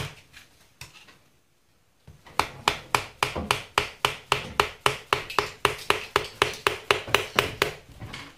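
Fast, even metal tapping, about four or five strikes a second with a short ringing note, starting about two seconds in after a single knock: a screwdriver seated in a stuck screw on an old Holley carburetor being struck to shock the screw loose.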